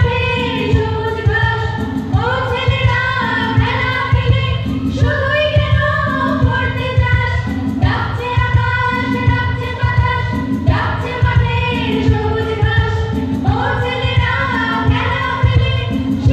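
Live song through a PA: a woman singing lead into a microphone with women's backing vocals, accompanied by electronic keyboard and acoustic guitar over a steady, regularly repeating beat.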